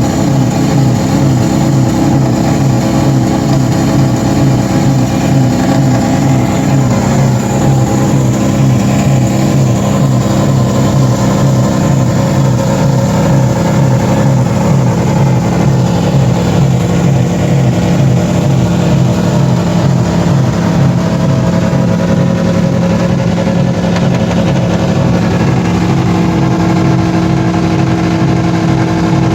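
Three car engines, a 3.8, a 5.4 and a Mitsubishi engine, running together at steady sustained high revs, being run to destruction. Their pitch holds nearly even, shifting slightly a few times.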